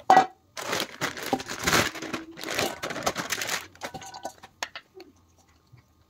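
Stainless steel bowl set down with a clank and a short ring, followed by about three seconds of rustling and crinkling as cut vegetables are handled in the bowl, then a few light clicks.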